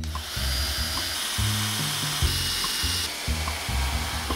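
Cordless drill running into wooden boards, its motor whining in a few short runs, over background music with a steady bass line.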